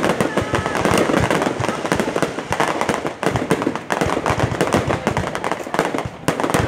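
Fireworks display going off without a break: a dense, rapid crackle of many small bangs and pops.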